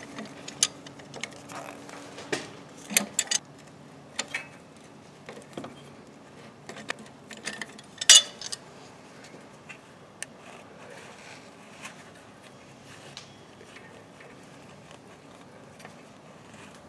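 Channel-lock pliers being worked on an engine's oil pressure switch to unscrew it: scattered metallic clicks and clanks, with one louder clank about eight seconds in, then fewer and fainter taps.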